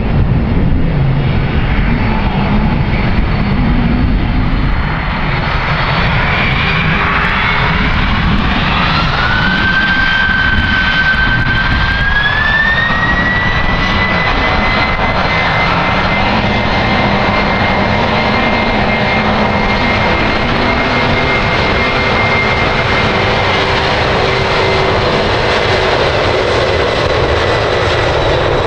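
Jet airliner engines running loud over a steady rumble. A whine rises in pitch about eight seconds in, levels off a few seconds later and then holds steady as the engines spool up to higher thrust.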